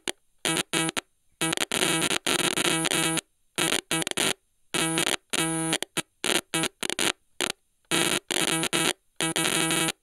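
Stylophone's buzzy, steady-pitched tone cutting in and out in irregular chopped bursts, with sudden dropouts to silence between them: a glitching, stuttering effect.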